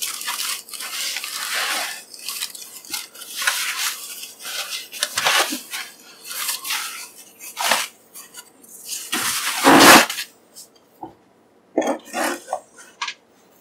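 Thin foam packing sheet rustling and crinkling in irregular bursts as it is pulled off a PC case's motherboard tray, with one louder burst and a low knock about ten seconds in.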